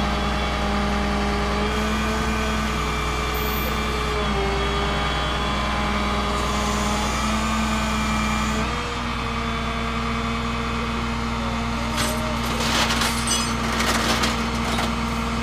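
Flatbed tow truck's engine running steadily, its pitch stepping a few times, with a short run of metallic clinks and knocks about three quarters of the way through.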